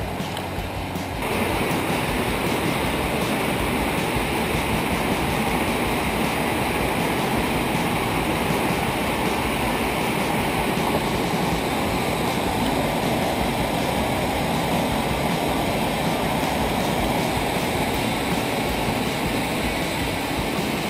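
Rushing water of a rocky mountain stream tumbling over boulders and a waterfall, a steady noise that steps up a little over a second in.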